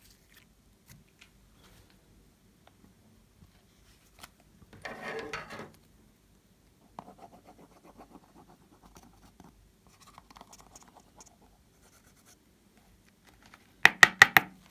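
Hands handling craft materials: faint ticks and scratchy rustling, with a louder scratchy patch about five seconds in. Near the end comes a quick run of loud, sharp clicks as a plastic eyeshadow palette is handled.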